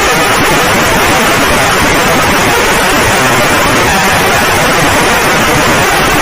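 Loud, steady, harsh static noise, the kind of burst used in a fan-made Emergency Alert System alarm.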